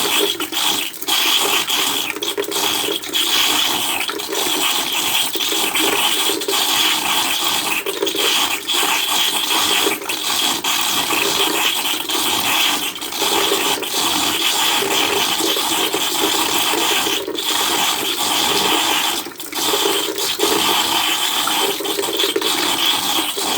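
Rainwater pouring steadily into a black plastic container, a continuous splashing rush with a short lull about three quarters of the way through.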